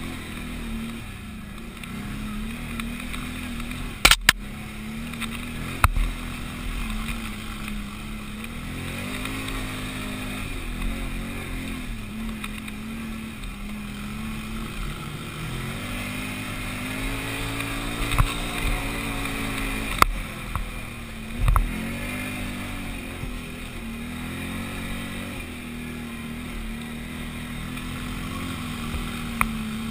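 Can-Am 500XT ATV's V-twin engine running under load, its pitch rising and falling with the throttle again and again. Several sharp knocks cut through it, the loudest about four seconds in.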